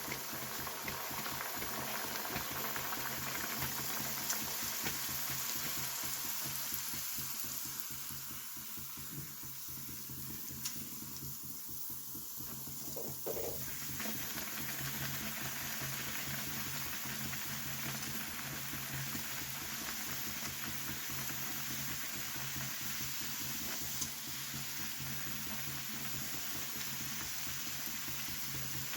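Food sizzling in hot oil in a pan: a continuous crackling fry that thins out for a few seconds around the middle, with a steady low hum underneath.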